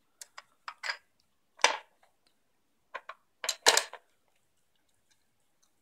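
Hard plastic pieces of a dog treat puzzle board clicking and clacking as a small dog noses at its cones and levers: a few light clicks, a loud clack about one and a half seconds in, and a quick clatter of knocks just before four seconds in.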